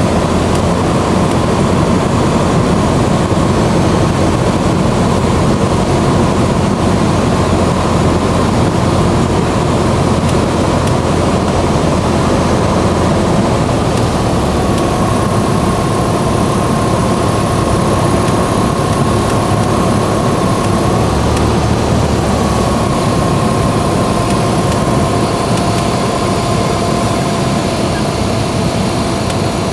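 Single-engine light aircraft's piston engine and propeller running steadily, heard from inside the cockpit during approach and landing. The noise eases slightly near the end as the plane rolls out on the runway with the engine at low power.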